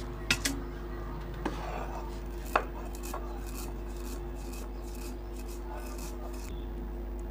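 Stone roller of a sil-batta crushing and grinding whole spice seeds on a flat stone slab, rough rubbing and scraping strokes. A few sharp stone knocks come in the first few seconds, the loudest about two and a half seconds in.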